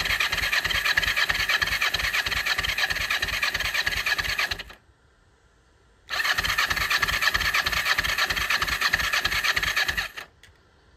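1998 Kawasaki Ninja 500's parallel-twin engine turning over on its electric starter with the choke on, in two bursts of about four seconds each with a short pause between. It cranks with an even beat but does not catch and run.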